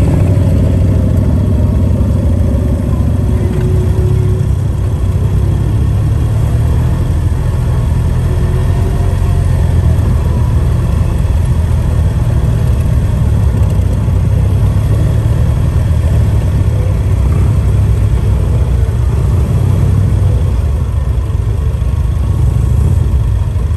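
Vehicle engine running steadily at low speed, a deep continuous rumble, mixed with the engines of motorcycles riding close by in a group.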